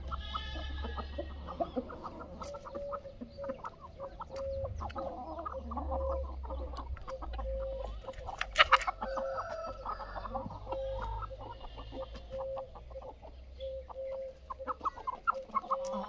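Desi chickens and Aseel roosters clucking, many short irregular calls, with one sharp louder call about halfway through.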